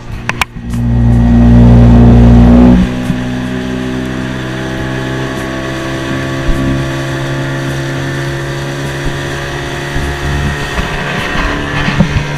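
Boat's outboard motor running steadily under way, with a steady engine note and water noise; it is much louder for about two seconds near the start.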